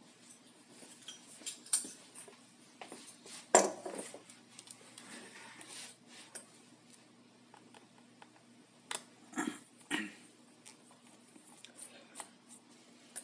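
Small hand tools and screwdriver bits clicking and clinking against each other and the work surface while a laptop is being disassembled, with one louder knock about three and a half seconds in and a short stretch of scraping after it.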